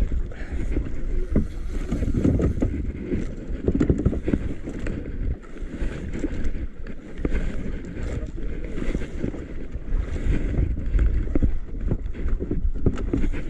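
Wind buffeting the microphone over sea noise around a small outrigger boat: a steady low rumble with scattered sharp knocks and clicks.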